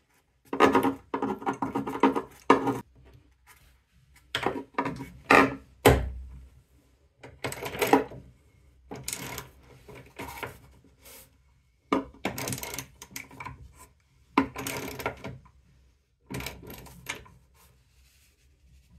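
Socket ratchet wrench clicking in short repeated bursts, as the nuts on stainless steel keel bolts are tightened down through a fiberglass hull. There is a heavier knock about six seconds in.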